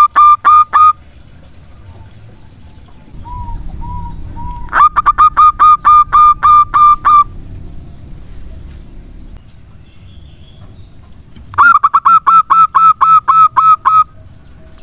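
Zebra dove (perkutut) singing: three bouts of rapid, evenly spaced cooing notes, about six a second, each bout lasting about two seconds, with a soft three-note coo before the second bout.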